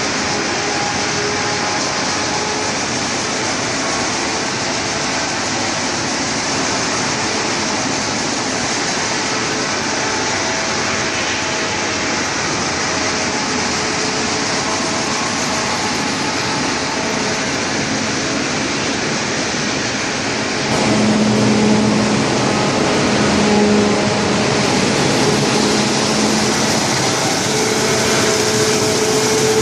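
Sawdust making machine running with a steady, loud mechanical noise. About 21 seconds in the sound changes and grows louder, with a steady low hum coming in.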